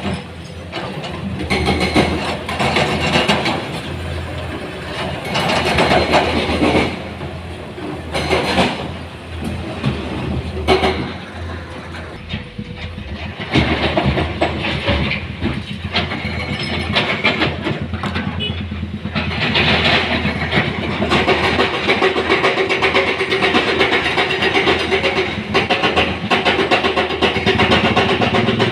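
Heavy diesel machinery running steadily, with repeated spells of clattering and scraping as stone is loaded into a dump truck by an excavator; the clatter comes in short spells at first and grows denser and more continuous in the last third.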